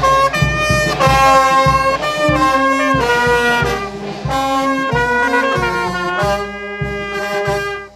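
Music led by brass-like wind instruments playing a melody of held notes over a steady drum beat. It stops suddenly near the end.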